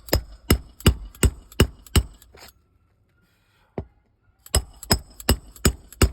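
A hammer striking a metal nail-driving tool (roof snake) to set roofing nails through a shingle. Quick blows with a metallic ring, about three a second: six in a row, a lone blow, then five more.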